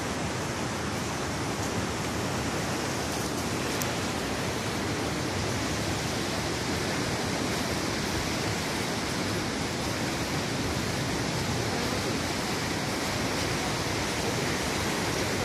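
River in flood: fast floodwater rushing in a steady, unbroken wash of noise.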